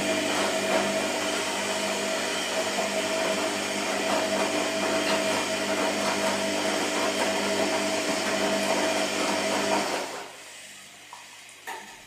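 Washing machine running: a steady motor whine over a rushing noise, which stops about ten seconds in. A couple of faint clicks follow.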